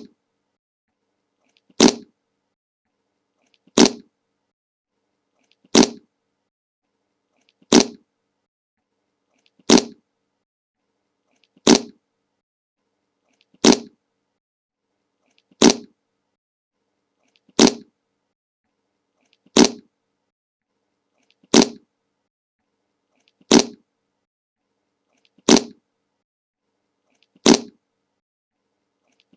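A short fart sound effect, the 'Le Monke' meme clip, repeated identically about every two seconds with silence between each one.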